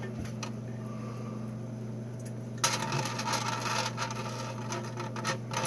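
Metal pan and small tin boxes clinking and scraping together while melted candle wax is poured from the pan into the tins, starting about two and a half seconds in. A steady low hum runs underneath.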